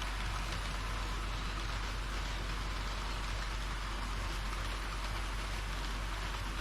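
HO-scale model train running along the track: a steady rushing of wheels on rails and the running motor, with a low hum underneath.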